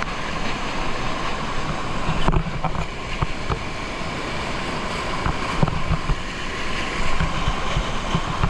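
Waterfall and fast-flowing water rushing close to a GoPro microphone, a steady dense roar with scattered low thumps from wind and water buffeting the camera.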